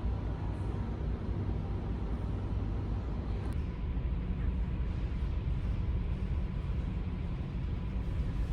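Steady low rumble of a large ferry under way, its engines and hull droning evenly with a faint steady hum above.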